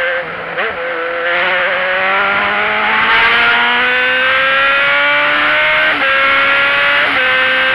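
Motor vehicle engine accelerating hard, its pitch climbing steadily, with two brief dips near the end where it shifts up a gear.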